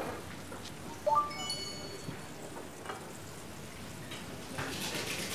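Metal cookware clanking during washing up: a sharp knock about a second in, followed by bright ringing tones, with a few lighter clinks. A rushing hiss builds near the end.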